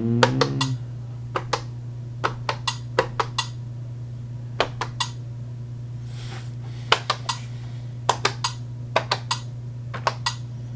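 Plastic push-buttons of a Giiker Smart Four puzzle pad clicking as a finger presses them one after another, in quick pairs and small clusters every second or so, over a steady low hum.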